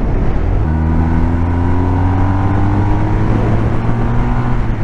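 BMW R1250R's 1254 cc boxer twin pulling hard under acceleration, its note climbing steadily and then dropping about three and a half seconds in as it shifts up a gear. Heard from inside the rider's helmet, under wind rush.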